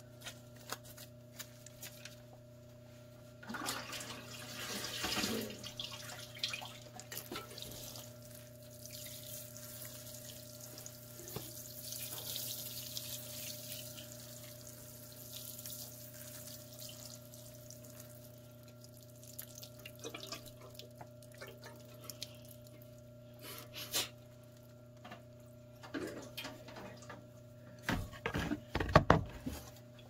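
Water sprinkled from a watering can onto the dry compost of a worm bin, a soft splashing hiss that swells and fades, over a steady low hum. A cluster of sharp knocks and clatter comes near the end.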